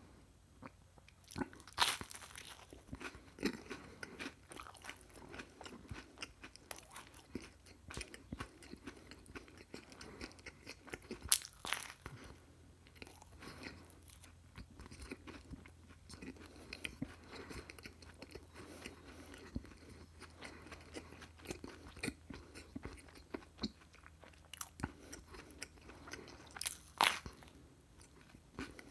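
Close-miked eating: crunchy chewing with a dense run of small crackles, broken by a few loud, sharp bites about two seconds in, near the middle and near the end.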